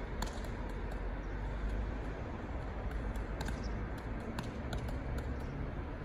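Beanbag juggling balls being thrown and caught by hand, a scattering of short soft pats at irregular moments, over a steady low outdoor rumble.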